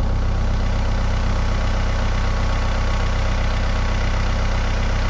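Tractor engine idling steadily, a low, even drone with no change in speed.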